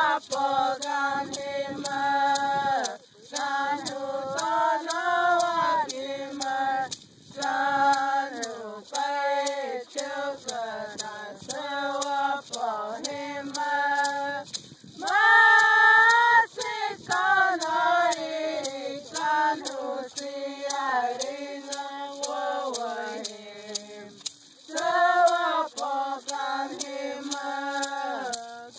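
Voices singing a Tohono O'odham traditional song in short phrases separated by brief breaths, over a steady beat of sharp clicks.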